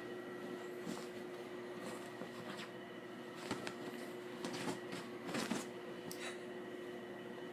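Scattered light taps and rustles, the loudest near the middle, over a steady indoor hum.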